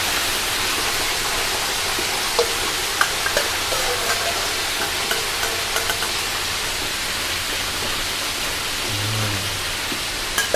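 Chicken wings deep-frying in a wok of hot oil, sizzling steadily with a few small pops and crackles in the middle. The oil is bubbling hard because the wings have just gone in.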